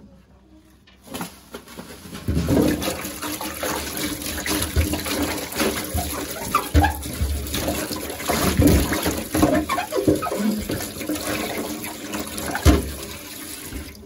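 Tap water running and splashing over a clear plastic refrigerator drawer as it is rinsed by hand, with the plastic knocking now and then. The water starts about a second in and stops abruptly at the end.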